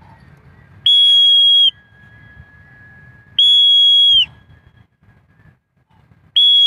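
A blown whistle sounded in three long blasts about two and a half seconds apart, each steady and high-pitched and dropping in pitch as it cuts off: a signal calling a homing pigeon down to land.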